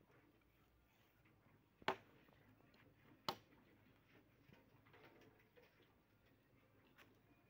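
Two sharp chops of a machete into a wooden branch, about a second and a half apart, with a fainter knock near the end.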